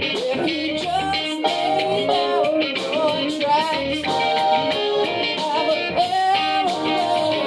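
A song playing: a singing voice over a band with guitar and a steady drum beat.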